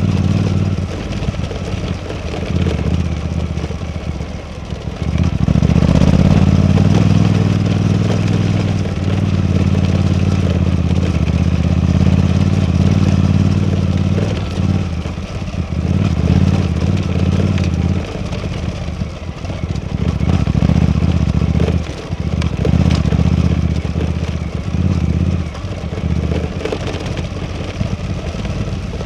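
Suzuki V-Strom 800DE's parallel-twin engine running under way. It pulls harder and louder from about six seconds in and drops off briefly several times, as throttle or gear changes, in the later half.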